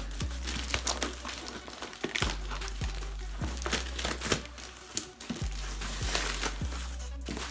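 Packing tape and plastic being peeled and torn off a cardboard shipping box, with crinkling and rustling of cardboard flaps. Background music with a deep, repeating bass beat plays underneath.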